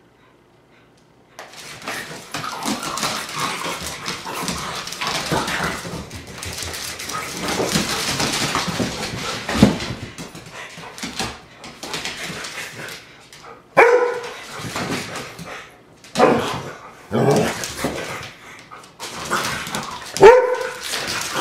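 Two dogs playing on a hardwood floor: a long stretch of rough, noisy scuffling, then about four short, sharp barks or yelps in the second half.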